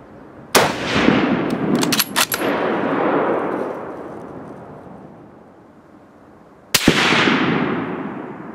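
Two shots from a .303 Lee-Enfield bolt-action rifle, about six seconds apart, each followed by a long rolling echo that dies away over a couple of seconds. About a second after the first shot comes a quick run of sharp metallic clicks as the bolt is worked to chamber the next round.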